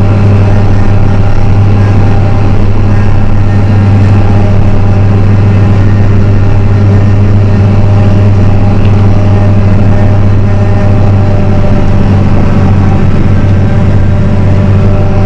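Tractor engine running steadily under load, driving an Elho Cobra 7710T trailed forage harvester through grass windrows, heard from inside the tractor cab as a steady low drone.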